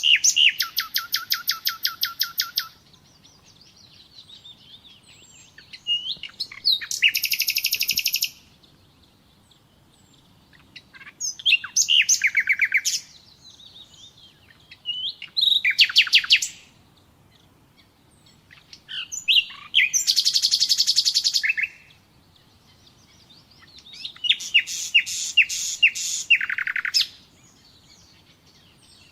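Common nightingale singing: about six separate phrases, each one to three seconds long and mostly made of fast runs of repeated notes. The phrases are spaced by pauses of two to three seconds that hold only faint twittering.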